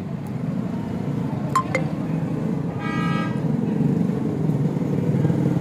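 A motorcycle engine running and growing louder as it approaches, with a short horn honk about three seconds in. Two quick clicks come shortly before the honk.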